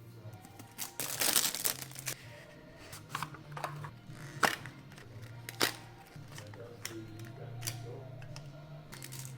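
Vape pod kit packaging being handled over background music. About a second in there is a rustle of packaging lasting about a second, followed by several sharp clicks and taps from the box and its parts.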